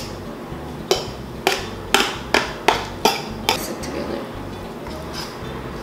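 Spoon or fork clinking and scraping against a mixing bowl while bananas are stirred into peanut butter dough. There are about eight sharp knocks, roughly two a second, thinning out toward the end.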